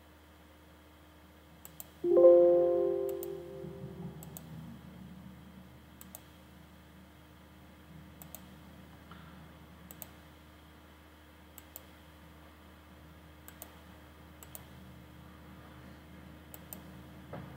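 Computer mouse clicking every second or two. About two seconds in, a single chime-like chord sounds suddenly and rings out over about two seconds, the loudest thing here. A low steady hum runs underneath.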